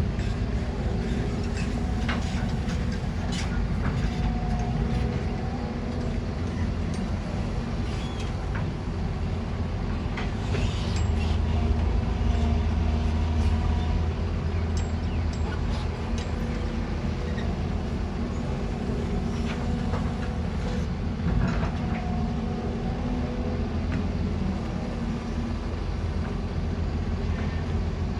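Heavy earthmoving machinery running: a steady low engine rumble from excavators and dump trucks at work, with scattered clanks and knocks and a brief swell in loudness about halfway through.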